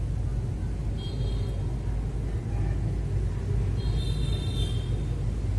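Steady low background rumble, with two brief faint high-pitched tones, about one second in and again about four seconds in.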